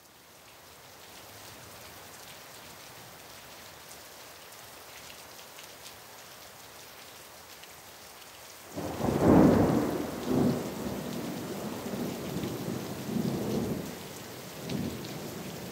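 Rain and thunder: a steady hiss of rain, then a thunderclap about nine seconds in that rumbles on in swells for several seconds.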